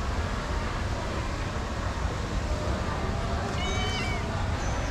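Female calico cat meowing for food: one short, high cry about three and a half seconds in, over a steady low background rumble.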